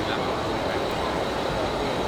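Steady rumbling background noise of a busy exhibition hall, with faint voices mixed in.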